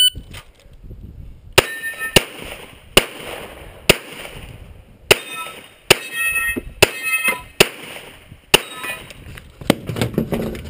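Semi-automatic pistol shots, about a dozen, fired at uneven intervals of roughly a second, with a quick cluster near the end. After several of the shots in the middle, a brief metallic ring follows, like struck steel targets.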